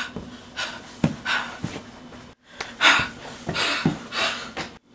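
A person breathing hard in a string of quick, noisy breaths, with a few soft thumps among them.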